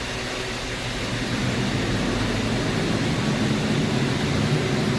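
Belt-driven exhaust fan running with a steady rush of moving air, growing louder over the first couple of seconds as it comes up to speed, then holding steady.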